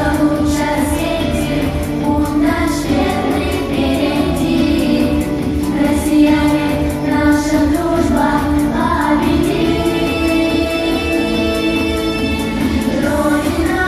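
A choir singing a song over musical accompaniment with a steady beat, recorded live.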